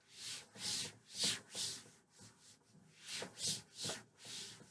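A chalkboard being erased: the eraser rubs across the board in quick back-and-forth strokes, two runs of about four with a short pause between them.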